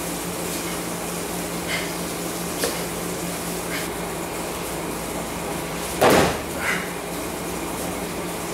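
A body landing on a martial-arts mat during a throw or fall: one loud thud about six seconds in, then a smaller slap just after, over a steady background hum.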